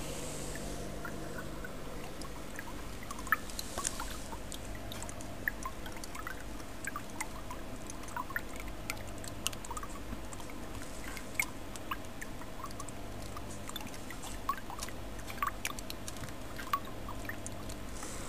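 Water trickling and dripping in a turtle tank, with many small irregular plinks of drops over a steady low hum.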